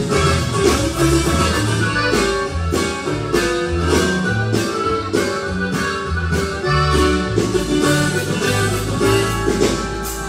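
Live norteño band playing: accordion melody over guitar and a bass line, with a steady beat.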